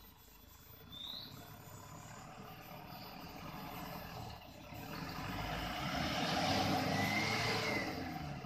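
Toyota Hilux pickup's engine working as the truck climbs a muddy trail, getting louder from about halfway through as it comes closer.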